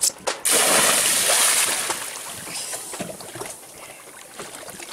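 A person jumping into open lake water: a loud splash about half a second in, then churning water that dies down over the next few seconds.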